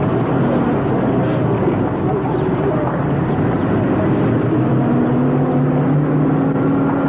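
Steady engine drone over rushing noise, with a low hum that comes in clearly about halfway through and holds steady.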